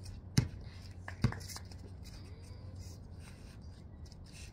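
A basketball bouncing twice on a concrete driveway, about half a second and a second and a quarter in, as it is dribbled; after that only faint background.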